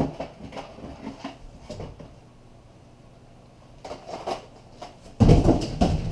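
Cardboard box and small boxes of fishing hooks being handled and set down on a counter: scattered knocks and rustling, then a louder cluster of heavier thumps about five seconds in.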